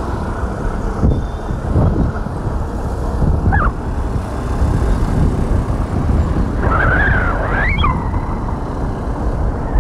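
Steady low rumble of road and vehicle noise mixed with wind on the microphone. A few short, high, rising-and-falling sounds come through about three and a half seconds in and again around seven seconds in.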